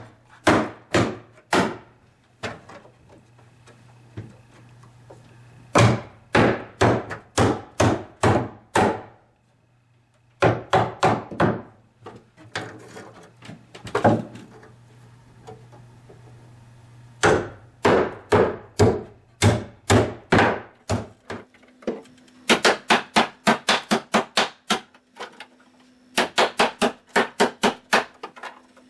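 Hammer driving the nails of carpet tack strips into wooden stair treads: runs of sharp strikes, several a second, with short pauses between runs. Near the end the strikes come faster and more evenly.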